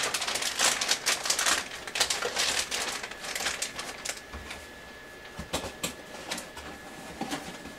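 Motherboard packaging being handled: dense crinkling and rustling for the first few seconds, thinning to scattered clicks and taps.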